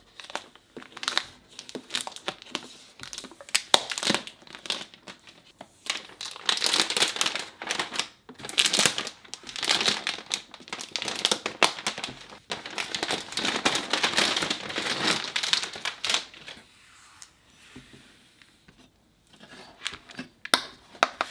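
Plastic protective wrap crinkling and crackling in bursts as it is peeled off an iMac's screen. It gives way to quieter handling about sixteen seconds in, with a few small clicks near the end.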